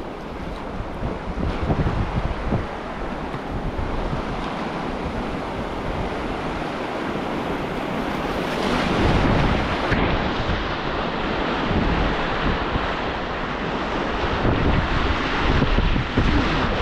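Whitewater rapid rushing, with wind buffeting the microphone; the rush gets louder about halfway through.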